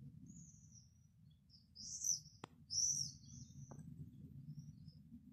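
Small birds chirping in short, high calls, loudest about two and three seconds in, over a steady low hum.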